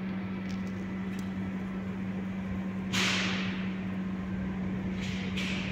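Sudden sharp hiss of compressed air released from a train's air system about three seconds in, dying away over about a second, with two shorter hisses near the end, over a steady low electrical hum.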